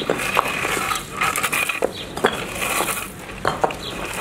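Irregular sharp clinks and knocks of hard objects striking, with a steady high whine running behind them.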